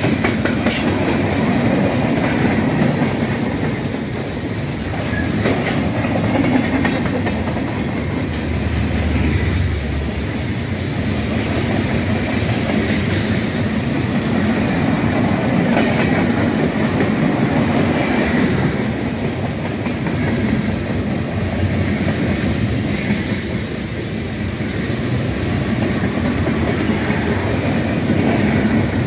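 Mixed freight train rolling past close by, a steady rumble of steel wheels on rail, with wheels clicking over the rail joints.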